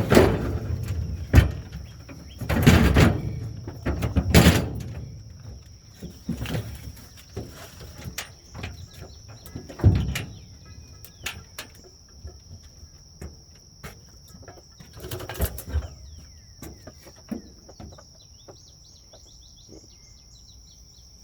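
Scattered clunks and thuds of a small railroad riding car being handled off a trailer: several loud knocks in the first few seconds, then single ones about ten and fifteen seconds in. Under them is a steady, high-pitched insect drone, with occasional bird chirps.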